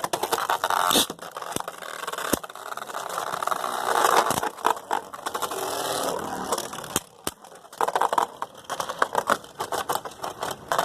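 Beyblade Burst spinning tops launched into a plastic stadium, whirring and scraping as they spin, with sharp clicks as they knock into each other. A choppier run of clicks and rattles comes near the end.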